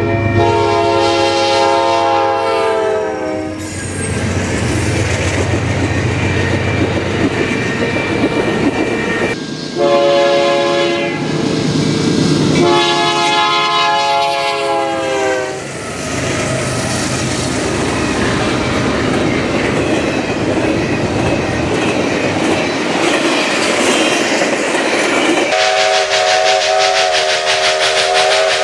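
Real train passing: a multi-note train horn sounds in long blasts (one at the start that drops in pitch partway through, two close together in the middle, and one held from near the end), over the steady rumble and clickety-clack of wheels on rails.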